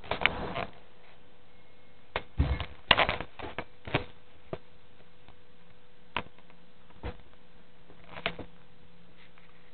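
Scattered clicks and knocks, a cluster of them a couple of seconds in and single ones after, over a faint steady hum: handling noise from a handheld camera being moved about.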